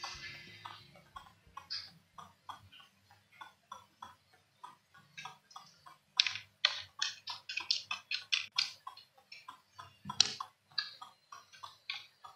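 Small, sharp clicks and taps of a laptop Wi-Fi card being pressed into its slot and its antenna cable connectors being handled, with a quick run of louder clicks about six to nine seconds in and a sharper knock about ten seconds in.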